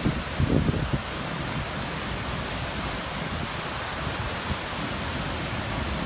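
Ocean surf washing steadily under wind, with wind buffeting the microphone in a brief low gust about half a second in.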